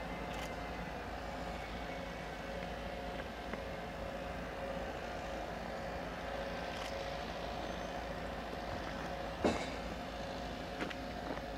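Hellenic Railways class 120 electric locomotive hauling a train of tank wagons at slow speed, a steady electric hum with a few steady whining tones. A single sharp metallic clank comes about three quarters of the way through, with a couple of fainter clicks after it.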